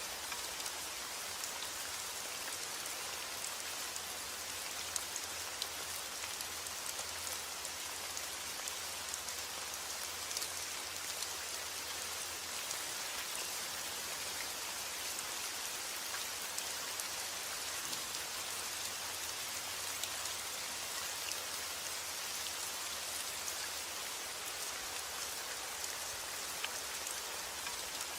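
Steady rain falling and pattering on surfaces, with scattered individual drops ticking through an even hiss.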